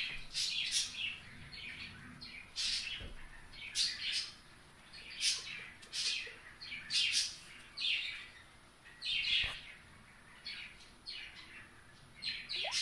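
Birds chirping in short, repeated calls, roughly one every second, at irregular spacing.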